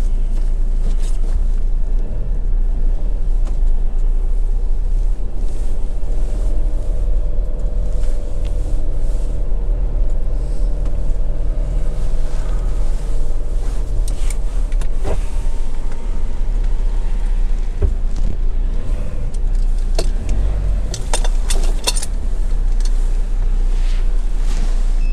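Swift Kon-Tiki motorhome driving slowly, heard from inside the cab: a steady low engine and road rumble. An engine note holds for several seconds in the middle, and there are scattered sharp clicks and rattles, several close together a few seconds before the end.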